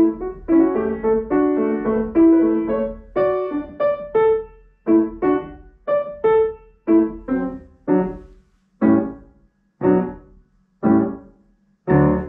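Solo piano playing: a quick run of notes gives way to separate notes and chords, at first in close pairs, then slowing to about one a second, each left to ring and fade, with the final chord struck near the end.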